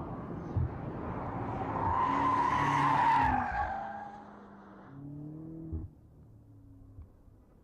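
2018 BMW M5 F90's twin-turbo V8 under hard acceleration with tyre noise. It grows louder to a peak about three seconds in, then fades. A shorter engine note comes about five seconds in and ends with a brief knock.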